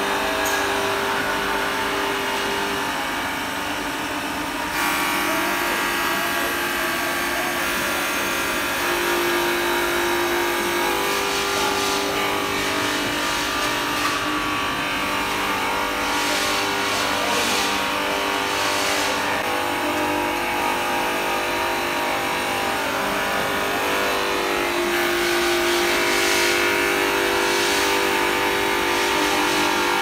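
Glass washing machine running: motors humming and rotating brushes scrubbing upright sheets of glass as they ride the conveyor rollers. A steady hiss steps up about five seconds in.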